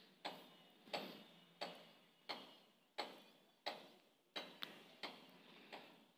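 HB graphite pencil flicked across paper in quick hair strokes, about one and a half a second. Each stroke starts with a sharp scratch and fades off as the pencil lifts.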